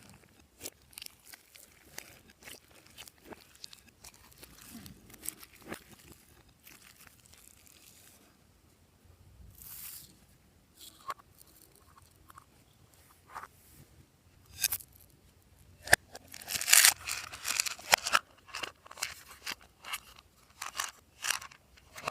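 Slime being worked by hand with makeup and clay mixed in, giving scattered sharp clicks and crackles. A dense flurry of crackling comes about two thirds of the way through.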